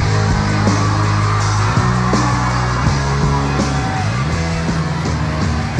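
Loud stage music with sustained bass notes and a steady drum beat.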